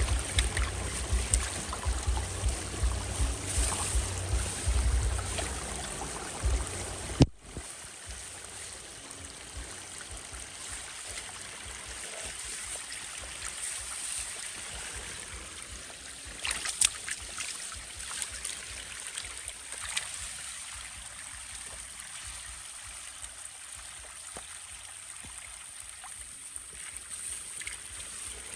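Running water, like a stream or trickle, with a heavy low rumble over it for the first seven seconds or so. Then there is an abrupt drop to a quieter, steady water sound, broken by a few short sharp knocks or splashes about two-thirds of the way through.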